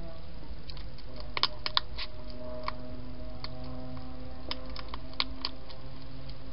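Wild hedgehog eating from a dish: irregular sharp crunching clicks as it chews, several close together a little after a second in and more near the end.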